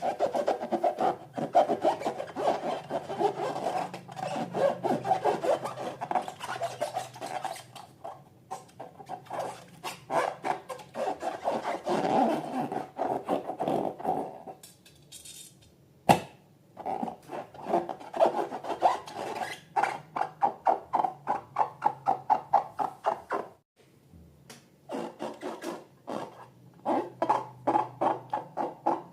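Rapid, rhythmic rubbing strokes, several a second, like something being worked or scraped by hand. They pause briefly about halfway through and again near the end, and a single sharp click comes just after the first pause.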